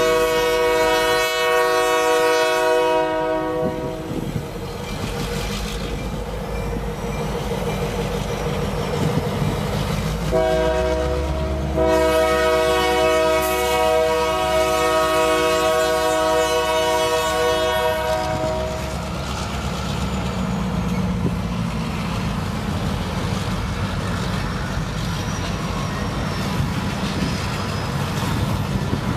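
Union Pacific EMD GP38 diesel locomotives sounding a many-note air horn chord: one blast for about three seconds, then a long second blast from about ten seconds in, lasting some eight seconds. Between and after the blasts the locomotives' diesels rumble steadily as they move with freight cars in switching.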